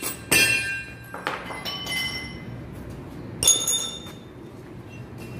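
A few hammer blows on steel pump parts, each ringing on. Two loud clanging strikes, one just after the start and one about three and a half seconds in, with lighter clinks between.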